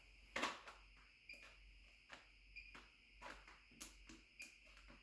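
Scattered light clicks and knocks while a milling machine is set up for drilling, about seven in all, the loudest about half a second in. A faint steady high-pitched whine runs underneath.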